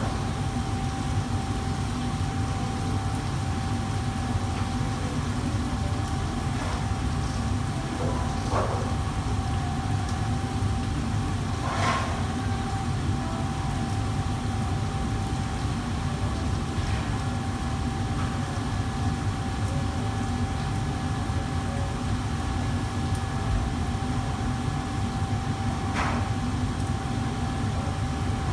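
Steady low roar of a commercial kitchen's wok range and exhaust hood, with a constant faint whine over it. A few faint knocks come through, the clearest about twelve seconds in.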